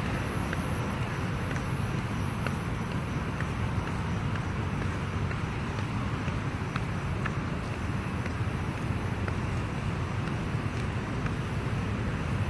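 Steady road traffic noise: a continuous rumble of cars with no single vehicle standing out, and a few faint ticks scattered through it.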